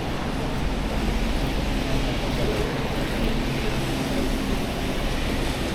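Steady downtown street traffic noise, with a low steady hum running under it.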